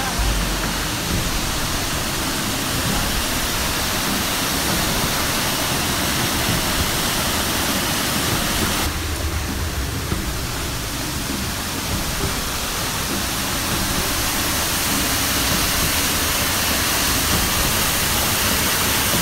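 Düden Waterfall's water pouring and crashing, heard from the rock cave behind the falls: a steady rushing noise that grows a little louder near the end.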